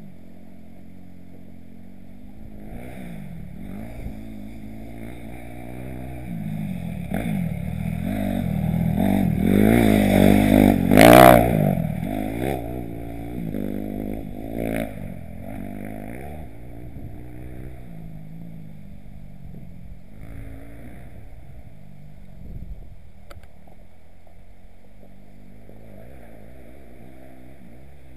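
Motocross bike engine revving up and down through the throttle as it passes, growing louder to a peak about eleven seconds in, then fading away.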